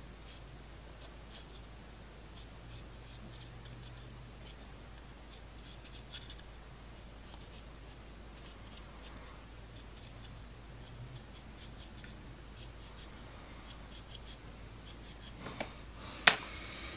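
Faint scratching and light ticking of a stiff brush working oil paint into the panel lines of a plastic model part, with one sharp click near the end.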